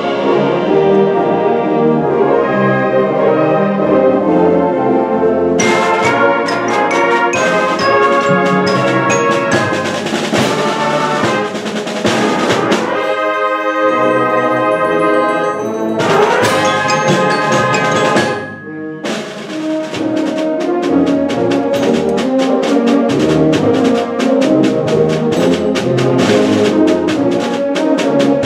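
Student concert band playing, brass to the fore over rapid percussion strokes. The full band drops away briefly about two-thirds of the way through, then comes straight back in.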